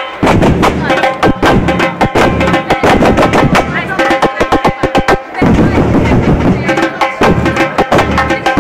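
A football supporters' bateria drum section playing at full volume: large surdo bass drums struck with mallets under rapid, dense stick strokes on smaller drums, in a driving samba rhythm.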